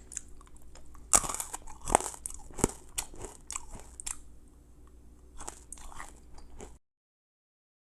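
Crunching and chewing on a fizzy-centred hard candy, a scatter of sharp crunches; the sound cuts off about seven seconds in.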